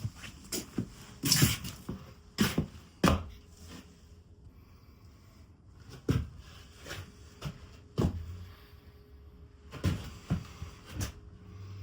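A run of irregular knocks and clunks, a dozen or so spread unevenly, with quiet gaps between them.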